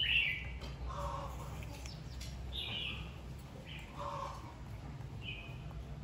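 Short, high chirping calls, about six of them, spaced a second or so apart over a low steady hum.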